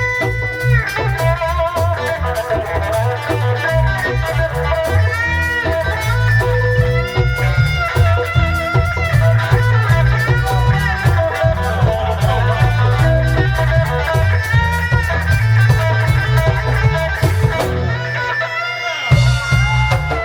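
Reggae band playing an instrumental passage: a lead guitar line with bent notes over a heavy, steady bass line. The bass drops out briefly near the end, then comes back in.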